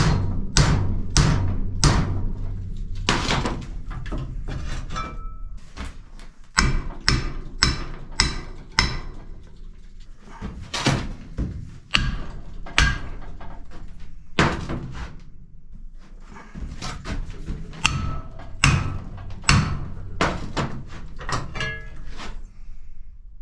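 Repeated hammer blows on metal, in quick runs of about two strikes a second with pauses between, some strikes leaving a brief metallic ring: a bent steel excavator part being hammered back toward straight.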